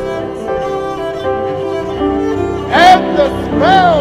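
Improvised cello and organ music on long held notes. About three-quarters of the way in, a man's voice cuts over it with two loud cries that rise and fall in pitch.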